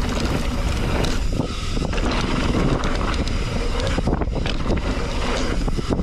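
Wind buffeting the microphone and tyres running over a dirt trail at speed, with a steady rush and many small rattles and knocks from the mountain bike on rough ground.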